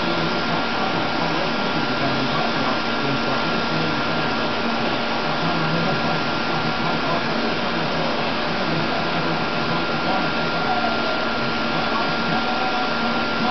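Paint spray gun and its air supply running: a steady rush of air with a thin high whine running through it, as paint is sprayed onto cupboards.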